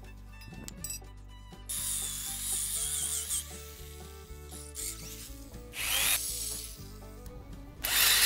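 Corded electric drill boring through square steel tubing, running in short spurts of one to two seconds. The last spurt, near the end, is the loudest.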